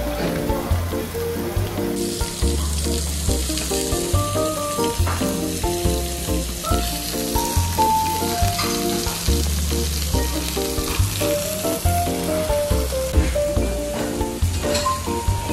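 Meat and vegetables sizzling on a hot cast-iron Genghis Khan grill pan, the hiss growing louder about two seconds in, with background music playing over it.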